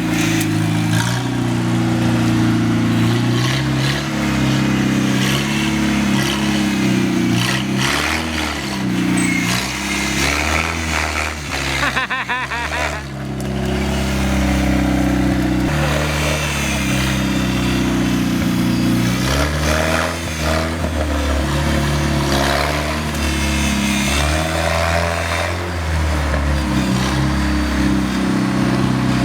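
GAZ-69's four-cylinder side-valve engine running under load as the vehicle is driven, its engine speed rising and falling again and again, with a short drop about twelve seconds in.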